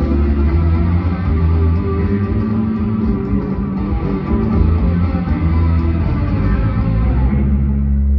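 Live rock band playing through the concert sound system, with guitar to the fore over a heavy bass line.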